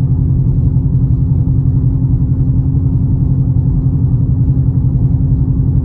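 Ford Mustang GT's V8 engine and loud exhaust, heard from inside the cabin while cruising at steady, low revs. It is a constant low drone that holds its pitch, with no tick audible over it.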